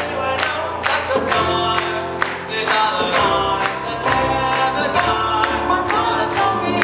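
Live pop band playing: several voices singing together over acoustic guitars and keyboard, with a steady beat.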